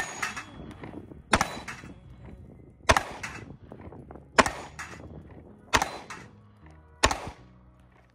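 Six pistol shots from a Glock 19X 9mm, fired at an even pace about a second and a half apart, each with a short ringing tail.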